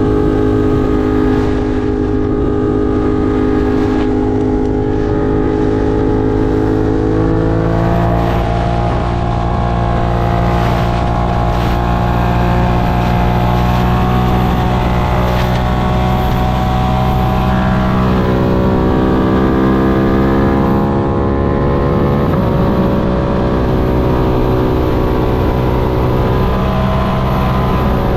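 Ducati Monster 1200 R's L-twin engine running under way, heard from on the bike, a steady drone whose pitch steps up about eight seconds in and shifts down and up again several times later on.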